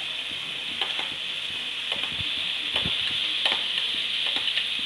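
Pumpkin cubes sizzling in hot ghee in an aluminium kadhai, a steady frying hiss. A few soft knocks and scrapes come as pieces land and are moved about in the pan.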